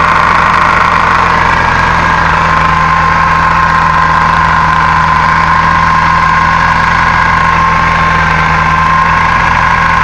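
Car engine running steadily with a knocking from the manual gearbox, which began after the reverse gear was replaced.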